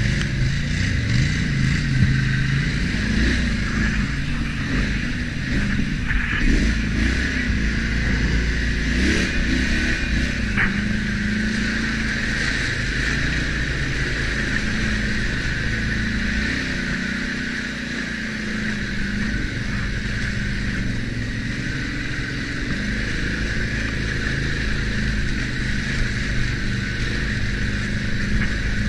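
ATV engine running while riding a trail, its pitch rising and falling with the throttle, with a steady higher whine.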